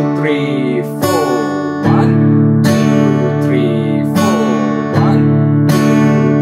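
Acoustic guitar strummed in a slow, even pattern on one held chord, with a stroke a little under every second, each letting the chord ring into the next.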